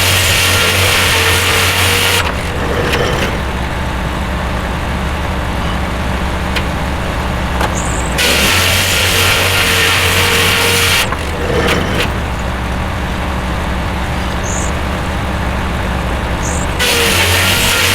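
Corley circular sawmill running with its power unit's engine going steadily. The blade cuts through wood three times, near the start, around the middle and near the end, each cut lasting about two to three seconds.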